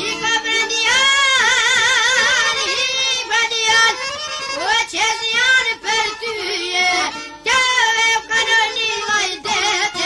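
Albanian folk song: a solo voice sings long, high notes with a wide vibrato over a light instrumental backing, with no drum beat under it.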